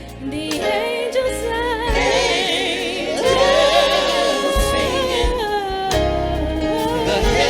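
Gospel song: voices singing long held notes with vibrato over a bass line.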